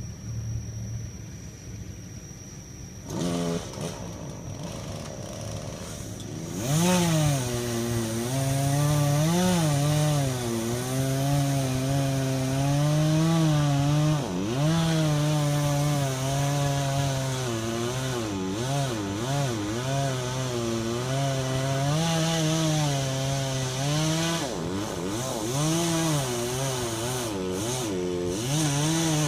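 Two-stroke chainsaw idling low, revving up about three seconds in, then running at high throttle through the cut with its pitch dipping and rising under load.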